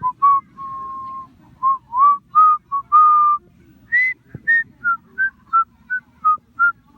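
A person whistling a tune close by: a string of clear notes, some held and sliding slightly in pitch, turning into quick short notes about halfway through.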